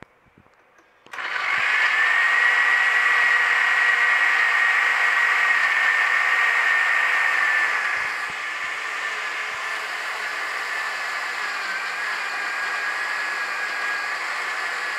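Electric countertop blender switches on about a second in and runs steadily with a high whine, grinding boiled spinach, green garlic and green chillies with a little water into a paste. Its sound eases a little about eight seconds in as the leaves begin to liquefy.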